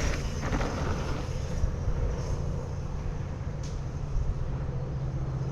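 Wind rumbling and buffeting on the camera microphone, a steady low roar.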